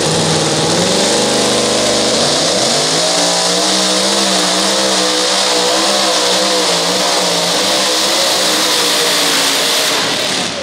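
Two-wheel-drive pulling truck's engine at full throttle under load. Its pitch climbs, dips briefly about two seconds in, then runs high and wavering for several seconds. Near the end the sound drops off suddenly as the engine fails, throwing sparks and catching fire.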